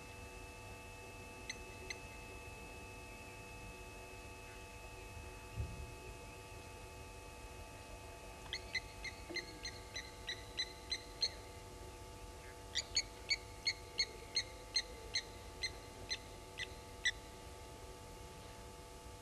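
Blacksmith lapwings giving their metallic, clinking alarm calls at an African harrier hawk: a few single sharp notes near the start, then two long runs of rapid notes in the second half.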